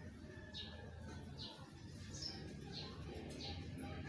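A small bird chirping repeatedly, short falling chirps about one every two-thirds of a second, over a faint low steady hum.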